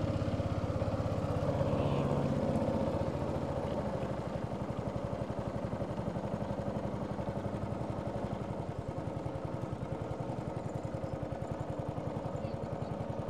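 Motor of a river crossing boat running steadily, a rapid even chugging, a little louder in the first three seconds and then easing off.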